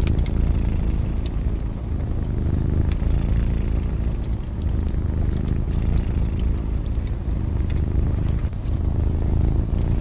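A cat purring steadily, a low continuous rumble, with the sharp crackles and pops of a fireplace scattered over it.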